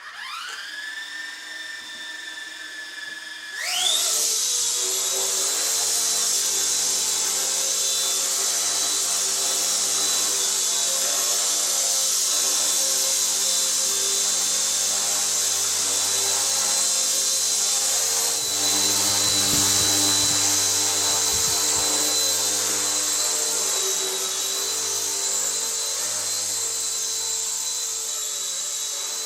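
Electric motors and rotors of an RC ERA C138 Bell 206 1/33-scale micro RC helicopter spinning up with a rising whine. The whine holds steady for a few seconds, then climbs sharply in pitch and gets louder about four seconds in as the throttle comes up for takeoff. It stays as a steady high whine while the helicopter hovers and flies.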